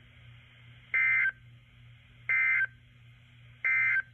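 Emergency Alert System end-of-message signal on NOAA Weather Radio: three short identical bursts of SAME digital data tones, about a second and a half apart, marking the end of the tornado warning. A faint steady low hum runs underneath.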